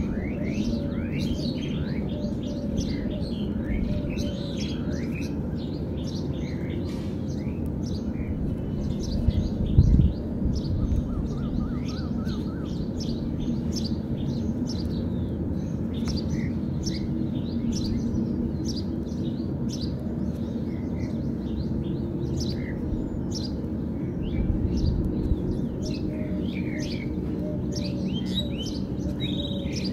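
Many small birds chirping continually, over a steady low background rumble, with one low thump about ten seconds in.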